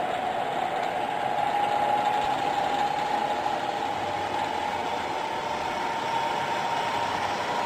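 Bridgeport EZ Trak vertical mill's spindle head running with a steady whine whose pitch rises slowly as the spindle speed handwheel is turned toward faster speeds.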